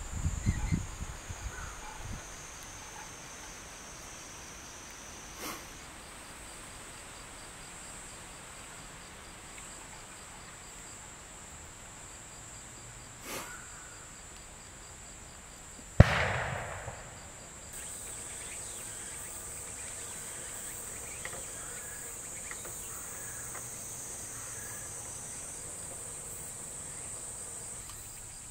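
A single loud bang about sixteen seconds in, with a short echoing tail, typical of the blasts an animal-deterrent device sets off to scare pests away; two faint sharp cracks come earlier. Insects shrill in a high, even tone that grows louder near the middle.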